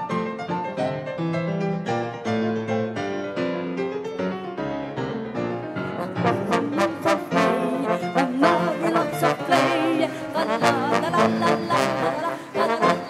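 Two trombones playing with piano accompaniment. The music grows louder about six seconds in, with the held notes wavering.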